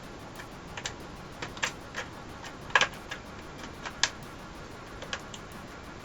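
Irregular small clicks and taps of a ThinkPad T30 laptop's plastic case and parts being handled during disassembly, loudest a double click nearly three seconds in.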